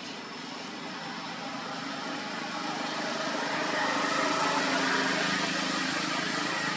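A motor engine running in the background, growing steadily louder over several seconds.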